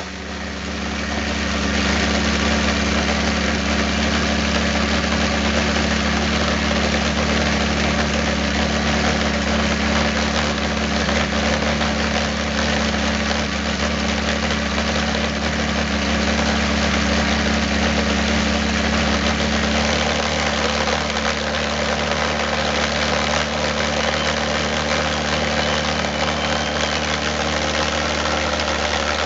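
Valveless pulse jet engine running steadily: a loud, deep, continuous drone. It dips at the very start and builds back up within about two seconds.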